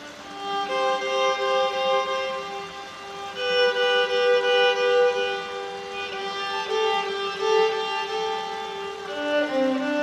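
Solo violin playing a slow melody of long held bowed notes, often two sounding together, inside a concrete tunnel.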